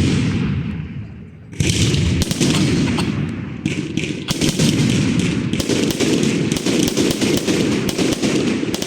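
Fireworks going off: a bang dying away at the start, then from about a second and a half in a dense, unbroken run of rapid cracks and bangs.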